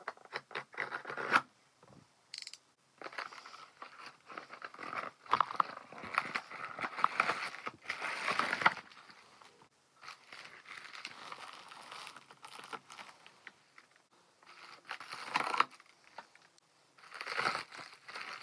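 Cardboard shipping box slit open with a box cutter, then irregular scraping and rustling of cardboard and a padded bubble mailer being handled. Near the end, a plastic mailer is torn open, with crinkling.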